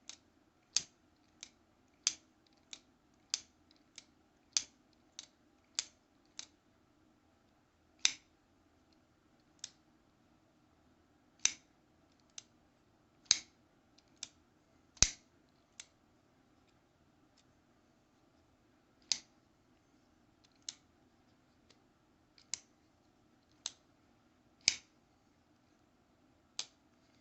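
Button-lock folding knife, an Orion Solaris, being fidgeted: the blade is flicked open and dropped shut over and over, each action a sharp click. The clicks come about two a second at first, then more spaced out.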